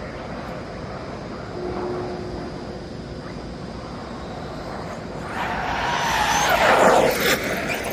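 1/5-scale electric RC car's brushless motor, driven by a Castle Creations Cobra 5 HV 12S ESC, and its tyres on asphalt as the car speeds toward and past. The motor whine and tyre noise build from about five seconds in, are loudest near seven seconds, and drop in pitch as the car goes by.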